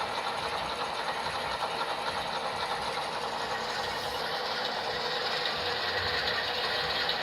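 HO-scale model diesel locomotives running at low throttle: the decoder's diesel prime-mover sound, led by the MTH C44-9W through its TCS speakers, with the two ES44AC GEVOs heard only faintly, over a steady fast rattling of the models' wheels and gears on the track.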